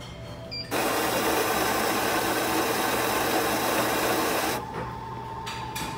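Automatic bean-to-cup coffee machine starting a drink after a button press: a loud grinding noise runs for about four seconds and cuts off suddenly. A steady humming tone follows as the machine moves on to brewing.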